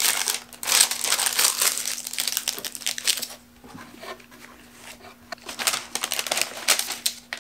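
White paper wrapping rustling and crinkling as it is unfolded by hand from around a filter. The rustling eases off for a couple of seconds in the middle, then picks up again.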